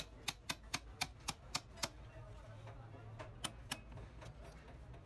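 Hammer tapping on the steel bracket of a truck pedal assembly: a quick run of sharp metal-on-metal taps, about four a second, then a pause and two more taps.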